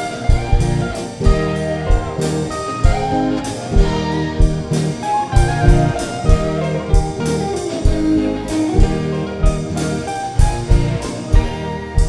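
Live band playing an instrumental passage: a Stratocaster-style electric guitar plays a melodic lead with bent notes over a steady drum-kit beat and keyboard.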